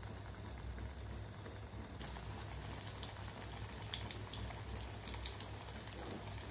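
Spinach pakoras deep-frying in hot oil in a steel pan: a steady sizzle with scattered crackles, which grow busier about two seconds in as fresh batter goes into the oil.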